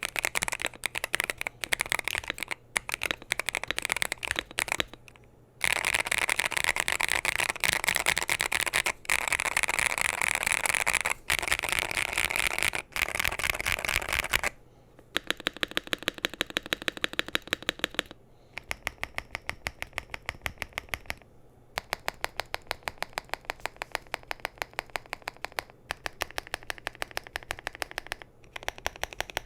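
Typing on a Wooting 80HE keyboard in a KBDfans GT-80 case, with lubed Gateron Magnetic Orchid hall-effect switches, a polycarbonate plate and GMK keycaps. Scattered keystrokes come first, then fast continuous typing, then rapid, evenly spaced keystrokes in short runs.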